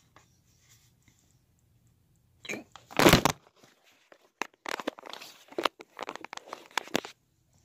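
Paper instruction sheet crinkling and rustling as it is handled: one loud crunch about three seconds in, then a run of small crackles and rustles.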